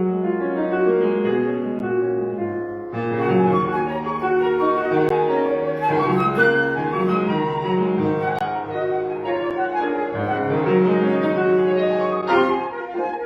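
Flute and piano playing a classical chamber piece together, with the flute melody moving over piano chords.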